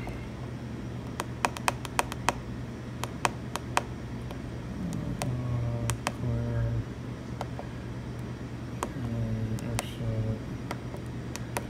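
Buttons on a Manitowoc Indigo ice machine's control-panel keypad being pressed to step through the menus: a run of sharp clicks, bunched in the first few seconds and sparser after.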